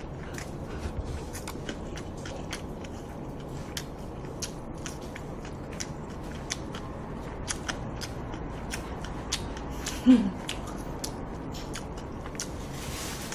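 Close-miked chewing of braised pork trotters: irregular small wet mouth clicks and smacks, a few each second. About ten seconds in, one brief low vocal sound that falls in pitch, the loudest moment.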